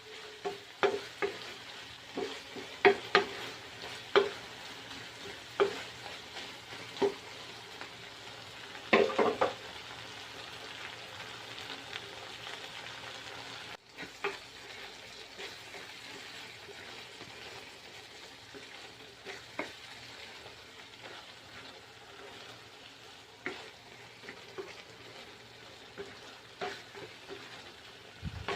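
Food sizzling in a frying pan as it is stirred, the cooking utensil knocking and scraping against the pan in sharp clicks. The knocks come thick and fast in the first ten seconds and more sparsely later.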